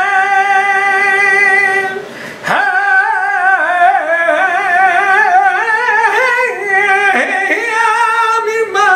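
A man singing flamenco cante unaccompanied, drawing out long notes with a heavy, wavering vibrato and ornamented melismas. He breaks off briefly for a breath about two seconds in, then sings on.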